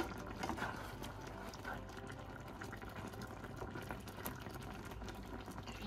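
Creamy sauce with pork chops simmering and bubbling in a nonstick frying pan, with many small pops.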